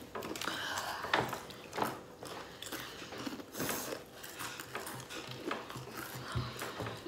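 People chewing crunchy Doritos Flamin' Hot tortilla chips and picking them off metal trays: irregular crunches and small clicks.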